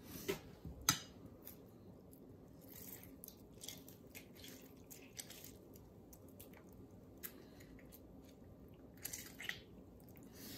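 Faint squishing of a lime half being squeezed by hand over a spoon, with juice dripping and a few small clicks of the spoon; one sharper click about a second in.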